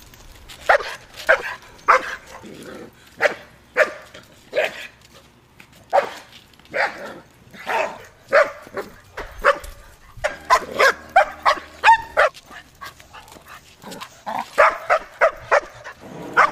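Black Labrador mix barking over and over while lunging on a leash, the leash-reactive barking of an anxious dog at nearby people. The barks come singly at first, then in quick volleys twice near the end.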